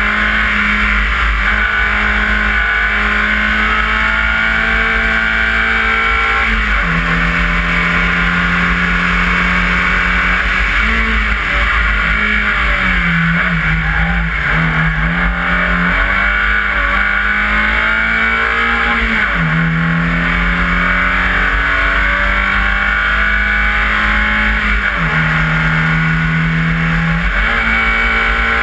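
BMW 318is rally car's four-cylinder engine running hard at speed on a tarmac stage, heard from a bonnet-mounted camera. The revs drop and climb back up several times as the car lifts off and accelerates between corners.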